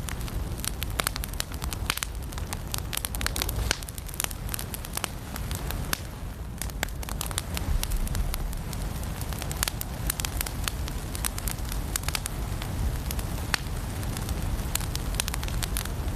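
Firewood burning in a fireplace, crackling and popping with many irregular sharp snaps over a low steady rumble.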